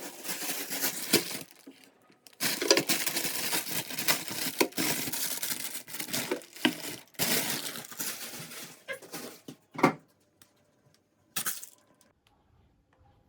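Kitchen handling noises: long stretches of crinkling and rustling, broken by a couple of sharp knocks near the end.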